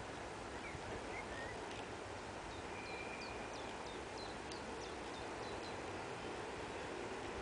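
Small songbirds chirping, a cluster of short high calls a few seconds in, over a steady faint rushing noise.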